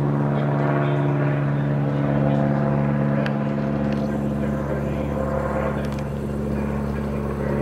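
Small propeller airplane towing an advertising banner, its piston engine droning steadily.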